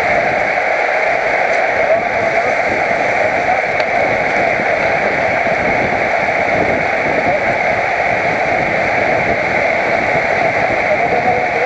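Steady wind noise rushing over a helmet-mounted camera's microphone while riding a road bike.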